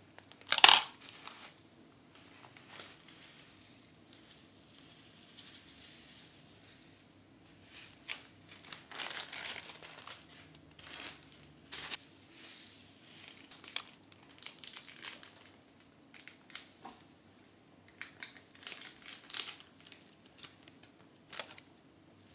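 Thin plastic bags crinkling in bursts as they are handled and foam beads are shaken out of them, with one sharp, loud crackle of plastic less than a second in.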